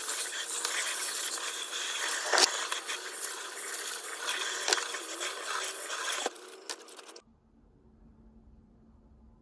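Scraping and rustling with a few sharp clicks, like objects being handled and rubbed; it cuts off suddenly about seven seconds in, leaving only a faint low hum.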